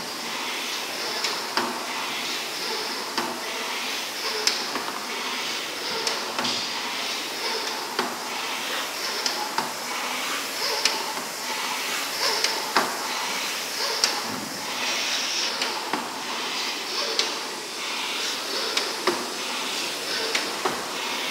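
Concept2 indoor rowing machine's air-resistance fan flywheel whooshing, swelling and fading with each hard stroke of a sprint, with sharp clacks between strokes.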